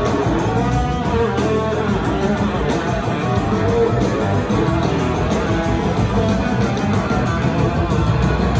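Live band playing with electric guitars to the fore over bass guitar, drums and keyboards, heard from the audience in the hall.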